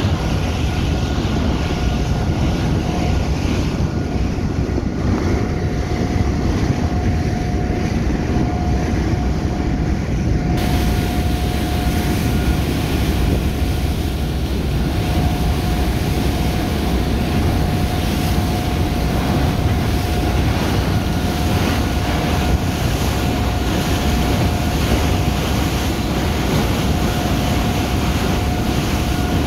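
Wind buffeting the microphone on the open deck of a car ferry under way, over a steady low rush of the ship's engines and the water, with a constant hum. The hiss grows brighter about ten seconds in.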